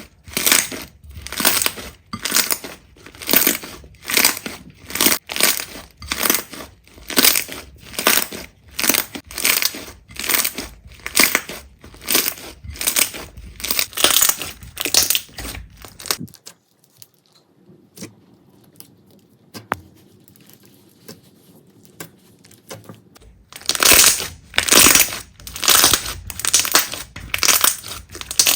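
Slime being squeezed and pressed by hand, making repeated short squishing, crackling sounds about one to two a second. It drops to faint handling sounds for several seconds past the middle, then the squeezing starts again.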